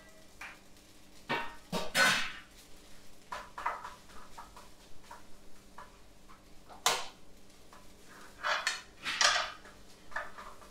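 Metal ladle scraping and knocking against a titanium-coated frying pan as rice and egg are stirred and pressed together for fried rice, in irregular strokes.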